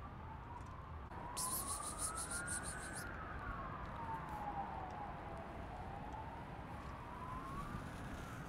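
A distant emergency-vehicle siren in a slow wail, rising for about three seconds, falling, then rising again, over a low steady rumble. From about one and a half seconds to three seconds a rapid high-pitched ticking, the loudest sound here, runs alongside it.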